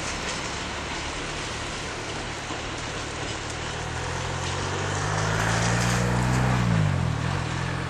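SU45 diesel locomotive's engine running under load, its drone growing louder as it approaches, then dropping in pitch about seven seconds in as it passes.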